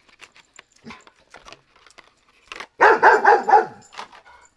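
A dog barking in a quick run of several loud barks about three seconds in. Before it, faint crinkles and clicks of a plastic blister pack being handled.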